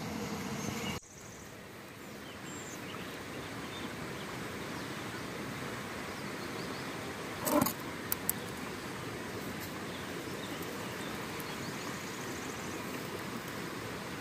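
Steady rush of running water from a stream, with a brief louder sound about seven and a half seconds in and two sharp clicks just after it. A different sound cuts off abruptly about a second in.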